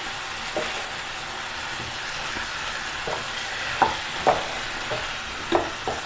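Chicken pieces frying in ghee in a wide kadai with a steady sizzle, while a spatula stirs and scrapes the pan, making several short knocks. The masala is being dried down on a high flame and needs constant stirring to keep it from burning.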